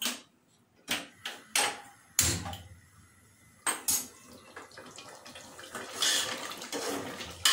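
A handful of separate sharp metal clinks and knocks, then a spoon stirring and scraping through thick chicken curry in an open metal pressure cooker, growing louder in the last few seconds.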